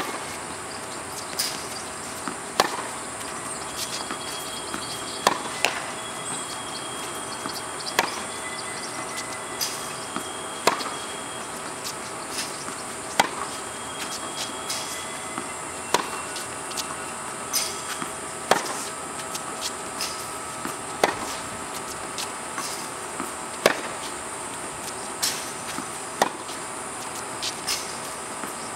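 Tennis rally: sharp pops of racket strings hitting the ball, about one every one to two seconds, some loud and some softer, with the ball's bounces on the hard court between. A steady high-pitched buzz runs underneath.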